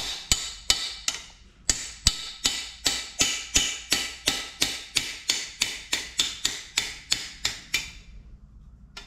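Hammer blows on a bar driving a drilled oil gallery bung out of an A-series cast-iron engine block: quick, steady metal strikes, about three a second, that stop shortly before the end.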